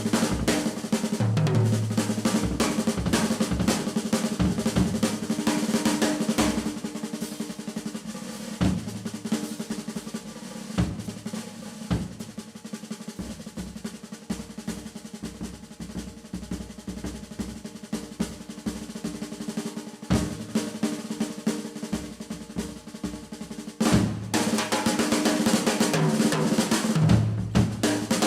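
Jazz drum kit played solo: snare rolls and rimshots with tom and bass drum hits. The playing thins to sparser, quieter strokes after about eight seconds, then builds back to dense, loud rolls with low tom thuds near the end.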